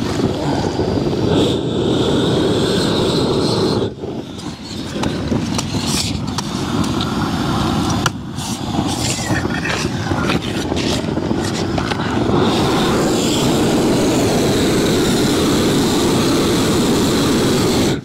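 Propane roofing torch burning with a steady rush of flame as it heats peel-and-stick roofing membrane, warming the damp membrane so it will stick. The sound eases off briefly about four and again about eight seconds in.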